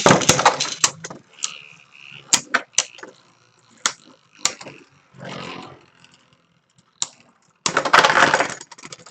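Two Beyblade Burst spinning tops launched into a plastic stadium and battling. There is a loud rush of the launch and spin-up at the start, then sharp clacks as the tops strike each other and the stadium walls, and another loud, grinding clash near the end.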